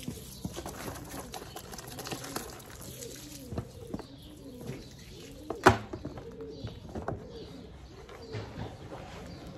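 A pigeon cooing over and over, in a steady series of low, rounded calls. Scattered knocks and clicks sound alongside, the loudest a single sharp knock a little past halfway.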